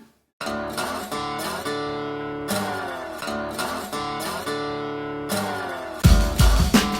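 Background music: acoustic guitar strumming chords, with drums and bass coming in about six seconds in.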